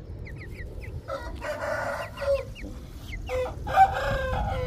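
Young chickens peeping in short, high, falling chirps throughout, while a rooster crows twice, each crow lasting about a second and a half; the second crow is louder.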